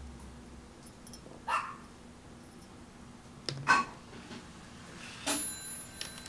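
A dog yelping briefly twice, about a second and a half in and again nearly four seconds in, the second louder. About five seconds in comes a sharp sound followed by a thin ringing that fades slowly.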